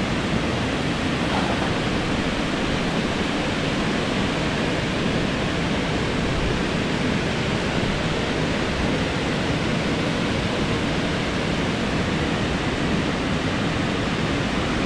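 Steady rush of flowing river water, an even noise at constant level with no breaks.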